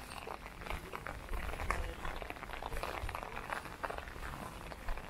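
Light rain pattering on an umbrella overhead: a steady scatter of irregular drop clicks.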